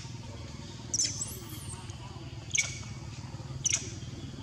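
A young macaque squealing in short high-pitched cries, three in a row about a second apart, over a steady low hum.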